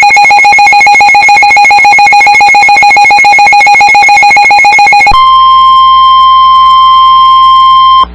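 Emergency Alert System attention signal: the rapidly beating two-tone alarm, which about five seconds in gives way to a single steady higher tone, the National Weather Service warning alarm tone, cutting off near the end.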